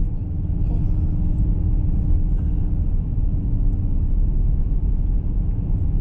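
Car driving on a road: steady low road and engine rumble heard from inside the cabin.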